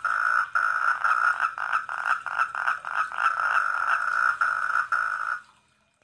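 Four-lined tree frogs (Polypedates leucomystax) calling in a steady chorus of quick repeated notes, fading out near the end.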